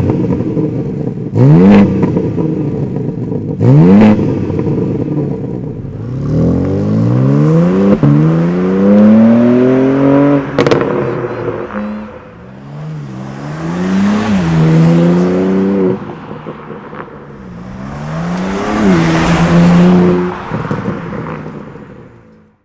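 BMW M4 Competition's S58 twin-turbo straight-six, breathing through a Stone catted downpipe: three quick revs, then longer runs where the engine pitch climbs steadily and drops back several times under acceleration.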